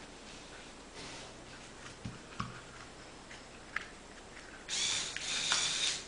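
Lego Technic crane claw working as it closes around a TV remote: a few faint plastic clicks, then a louder mechanical noise lasting a little over a second near the end.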